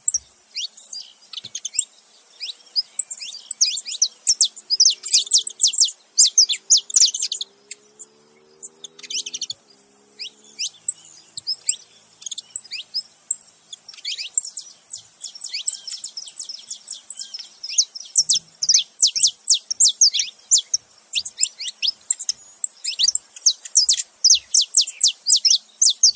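Saffron finches, a male and a female, chirping and singing together: quick runs of high, downward-sweeping notes, with a short lull about eight seconds in.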